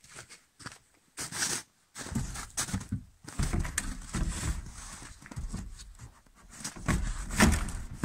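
Handling noise as a long wooden pole is lifted and shifted off a plastic trailer canopy: uneven rustling, scraping and knocks, with footsteps in snow.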